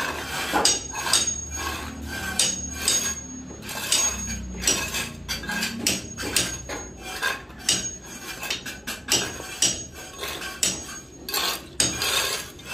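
Hammer blows on a building site, struck irregularly about once or twice a second, several of them leaving a short high metallic ring.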